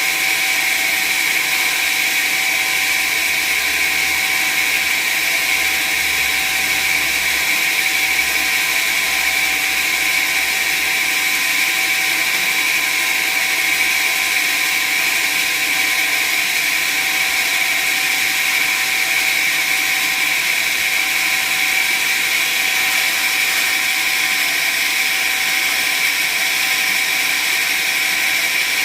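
Sawmill saw running through acacia wood: a loud, steady whine with a high hum that holds without a break.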